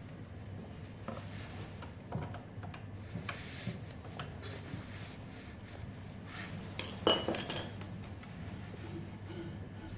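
Small metal clinks and knocks of tools and parts being handled, the loudest cluster about seven seconds in, over a low steady hum.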